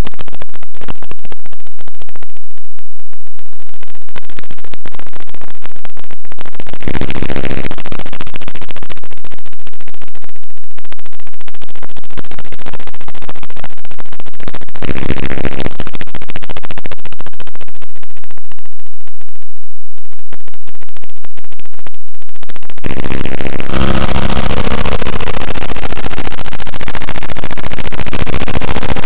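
Harsh electronic noise at full, clipped level: a dense crackle of clicks, broken by short loud bursts of low buzzing tones about seven and fifteen seconds in, then a thicker buzzing wall from about twenty-three seconds on.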